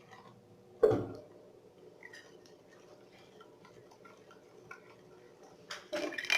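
Kitchen handling sounds: one sharp knock about a second in, then faint scattered clicks, and a louder rustle near the end, consistent with a bowl of lemon juice being covered with plastic wrap.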